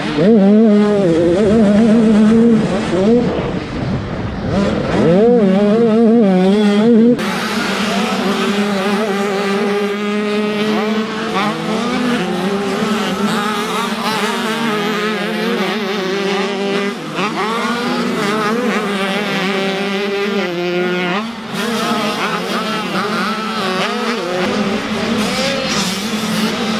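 Two-stroke 85cc motocross bike engines revving hard, pitch rising and falling with the throttle through the gears and corners. It is close and loud at first, then after about seven seconds it becomes a more distant, layered sound of more than one bike racing.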